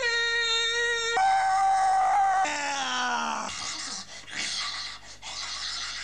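A man's wordless howling wail. He holds one long note, steps up to a higher held note, then slides down, and trails off into rough groans and grunts.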